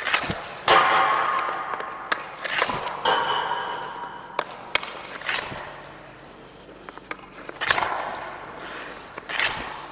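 Hockey stick shooting pucks on indoor ice: a string of sharp cracks as the blade strikes the pucks and the pucks hit the boards or net. Each crack trails off in the rink's echo.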